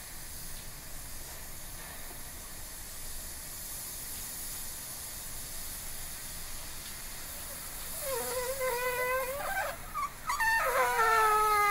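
Electric waffle iron cooking with its lid closed: a steady faint hiss of steam, then about eight seconds in a wavering, whining, fart-like tone starts as steam forces its way out between the plates. It breaks off briefly, then comes back louder and slowly falls in pitch.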